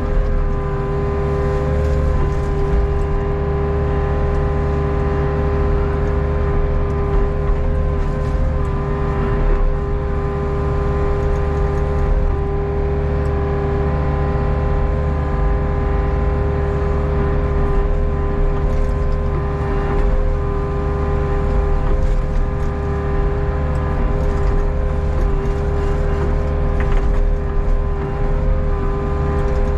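Hitachi Zaxis 48U mini excavator's diesel engine running steadily under working load, heard from the operator's seat, with a constant hum of held tones, as the boom and bucket dig and swing.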